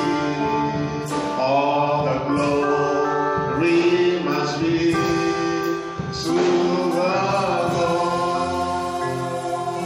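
Gospel worship music: singing in phrases of a second or two over steady held chords from accompanying instruments.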